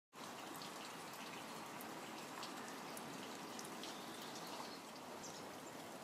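Steady rain falling, with scattered drops ticking close by.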